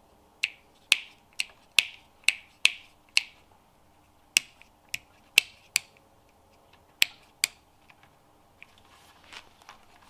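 Small round 12-volt rocker switches of a two-way (US three-way) lighting circuit being flipped on and off repeatedly, testing the circuit: about a dozen sharp clicks, quick at first, then further apart, with fainter handling clicks near the end.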